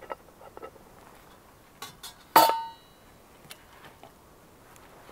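Metal camp cookware clinking: a steel pot stand set over a brass alcohol-stove burner and a stainless steel mug handled. A few light ticks, then one sharp ringing metal clink about two and a half seconds in.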